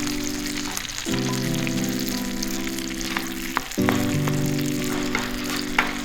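Food sizzling on the grill grate over a wood fire, with a steady hiss and scattered sharp pops and crackles. Background music of held chords plays over it, changing chord about a second in and again past the middle.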